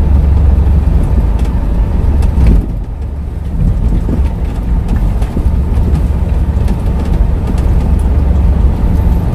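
Large truck's engine running under way, heard from inside the cab as a steady deep drone, with a few light knocks. The engine note drops briefly about three seconds in, then picks up again.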